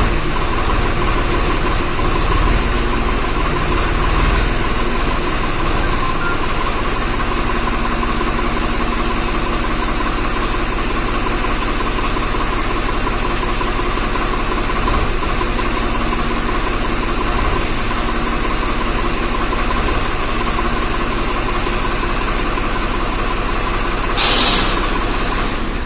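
Swaraj 744 FE tractor's three-cylinder diesel engine running steadily, with a brief louder burst of noise near the end.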